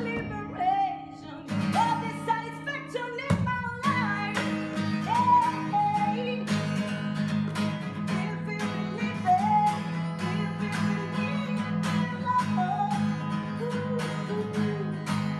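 A woman singing to her own strummed acoustic guitar, the strummed chords steady under the sung melody, with a short break in the strumming about three seconds in.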